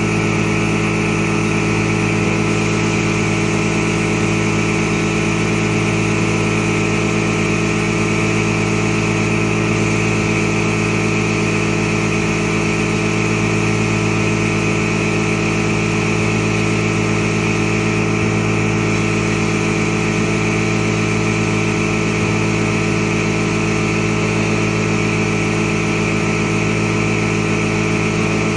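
A machine running steadily: a constant, unvarying hum with a hiss over it.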